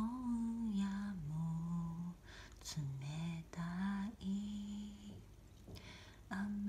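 A person humming a slow melody in long held notes that glide from one to the next, with short breaks between phrases and a longer pause near the end.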